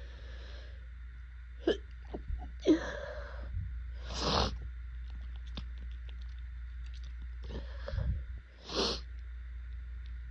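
A woman sneezing in an allergy fit brought on by pollen, with two sharp sneezes about two and three seconds in, followed by short, noisy breaths.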